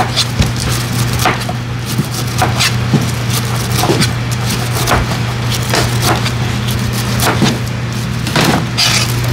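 Large knife slicing the rind off a whole pineapple on a plastic cutting board: a run of crisp cuts, roughly one every half second to second, with the blade knocking the board.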